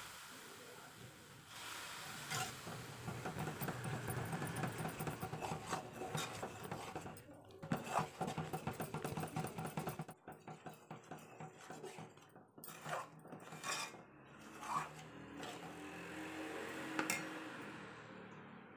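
A steel spoon stirring and scraping thick besan batter in an aluminium pot, with repeated clinks and scrapes of metal on metal. Hot oil is being worked into the batter a little at a time.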